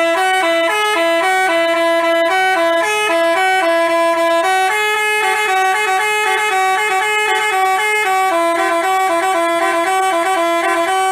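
Basuri telolet bus horn, a multi-note musical horn, playing a quick melody, its notes stepping up and down several times a second in two voices. It starts abruptly and is loud.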